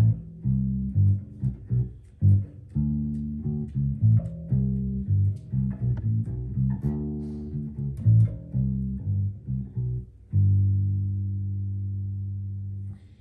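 Sterling SUB Ray4 electric bass played through an Ampeg BA110 bass amp, with the treble EQ turned fully up and the bass EQ at its centre detent. It plays a quick riff of plucked notes, then holds one long low note that is cut off near the end.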